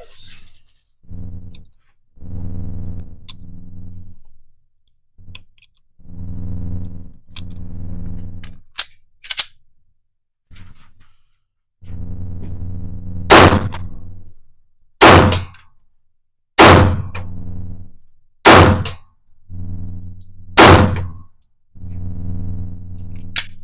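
Five handgun shots in the echoing lane of an indoor range, fired singly about one and a half to two seconds apart from about halfway through. A fainter sharp crack comes before them and another near the end. A low, steady hum starts and stops several times in between.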